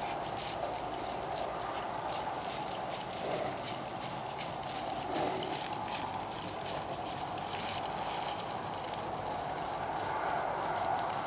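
Hoofbeats of a gray yearling American Saddlebred gelding trotting loose on grass, an irregular patter of footfalls.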